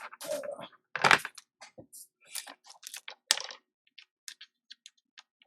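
Irregular small clicks, taps and short scrapes of small parts and tools being handled on a workbench, with a sharper knock about a second in and another a little past three seconds.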